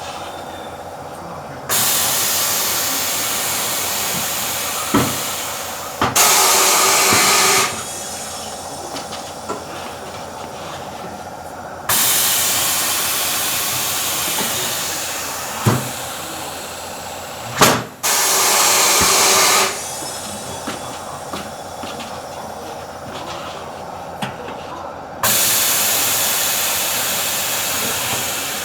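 Pneumatic tyre-changing equipment releasing compressed air in five long hissing bursts, each starting abruptly and then slowly fading. Short sharp clicks fall between the bursts, over a steady machine hum.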